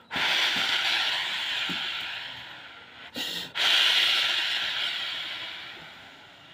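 A man imitating a rushing storm wind with his mouth: two long breathy hisses, each starting suddenly and fading away, the second beginning about three and a half seconds in, with a short puff between them.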